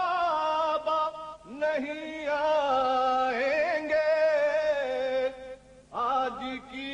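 A solo voice singing an Urdu noha, a Shia lament, in long held notes that waver in pitch, from an old 1940s recording. The voice breaks off briefly about a second and a half in and again just before six seconds.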